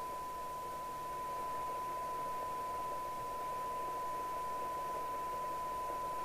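Steady 1 kHz test tone from the signal generator, demodulated by an FM CB radio receiver and heard from its loudspeaker, mixed with a constant hiss of receiver noise: a weak signal being set to the 12 dB SINAD point while the IF stages are aligned.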